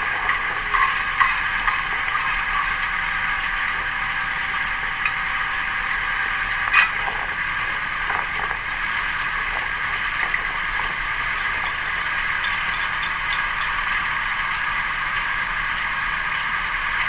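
Armstrong 33-W cable-tool drilling rig running steadily, heard thin and without bass as played-back video sound. Scattered small metallic clicks and one sharper knock about seven seconds in.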